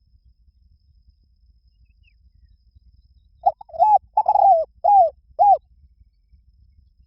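Spotted dove cooing: a phrase of about five loud coos, each rising and then falling in pitch, starting about halfway through after a quiet stretch.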